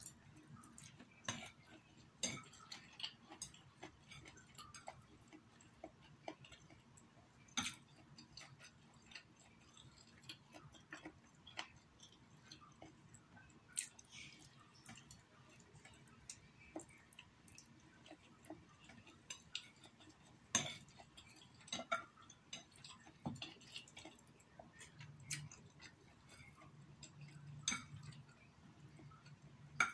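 Close-up eating of instant noodles with chopsticks: faint chewing and slurping, broken by many short, irregular clicks and smacks.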